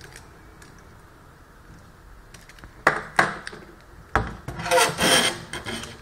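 Handling noises of a computer motherboard and tools on a workbench: two sharp clicks, then a knock and a second of scraping and rattling as the board is moved, around the removal of its USB port block.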